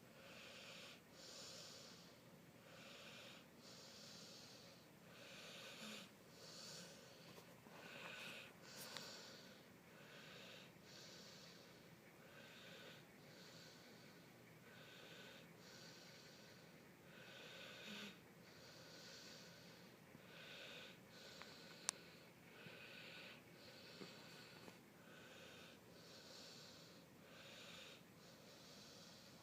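A sleeping golden retriever's faint snoring breaths, each breath drawn in and let out through the nose in a steady rhythm of about one sound a second. A single sharp click comes a little past the middle.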